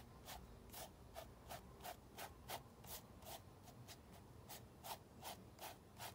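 Faint, quick back-and-forth strokes of a fan brush laying oil paint onto a small stretched canvas, each stroke a short brushing rasp, about two to three a second.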